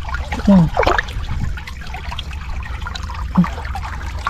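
Muddy floodwater trickling and splashing around rocks as a hand stirs in it, over a steady low rumble. A few short voice sounds stand out, about half a second in and again past three seconds.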